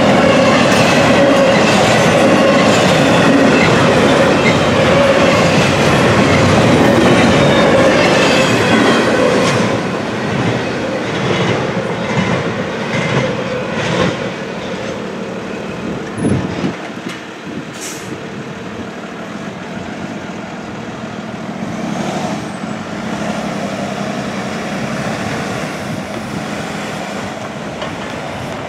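Double-stack intermodal container cars rolling past with rhythmic clickety-clack over the rail joints and a steady wheel squeal, loud for about the first nine seconds and then fading as the end of the train moves away. A few scattered clanks follow, and road traffic starts to be heard near the end.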